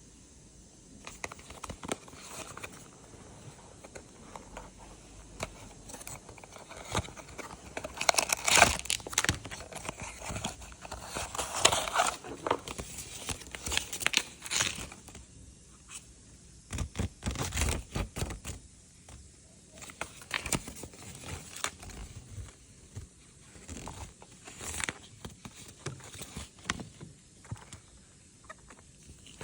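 Blind-box packaging being opened by hand: irregular tearing, crinkling and rustling of wrapper and cardboard, with small clicks. It is busiest from about eight to fifteen seconds in, with quieter pauses between.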